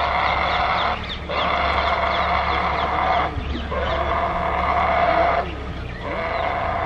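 Wild boar squealing in distress as a tiger grips it by the throat: long, steady screams of about two seconds each, broken by short pauses for breath.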